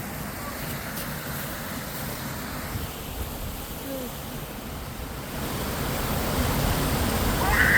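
Small waterfall rushing steadily, growing a little louder over the last couple of seconds.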